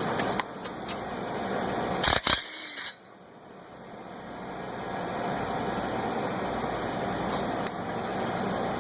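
Impact gun working on exhaust-manifold bolts, with a couple of sharp metallic knocks about two seconds in; the level drops suddenly soon after, then slowly builds back.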